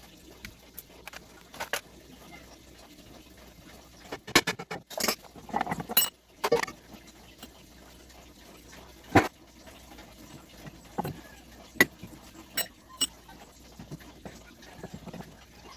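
Irregular clinks and knocks of metal parts and tools being handled, with a busy cluster in the middle and a single sharp knock a few seconds later.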